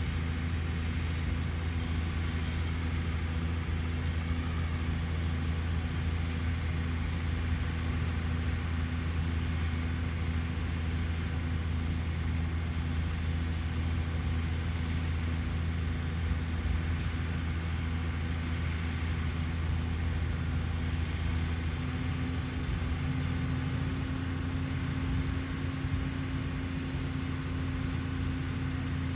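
Caterpillar excavator's diesel engine running steadily with a low, even hum; its pitch rises slightly about two-thirds of the way through.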